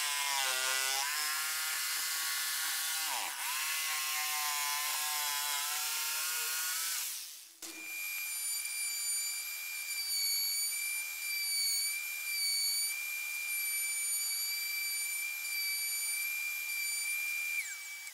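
A corded jigsaw cuts plywood, its motor pitch sagging and recovering under load. It then gives way abruptly to a table-mounted router running at high speed with a steady high whine as a plywood opening is trimmed over the bit. Near the end the router winds down with a falling pitch.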